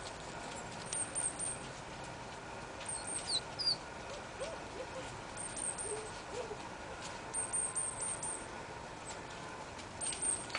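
Small bird chirping in short runs of high-pitched notes, about every two seconds.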